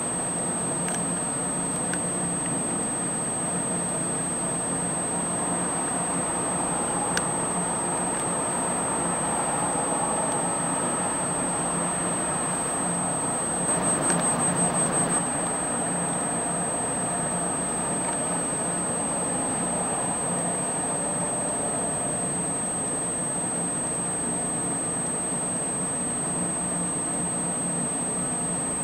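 A steady high-pitched electronic whine over a constant hiss and low hum, swelling briefly with a fluttering about halfway through.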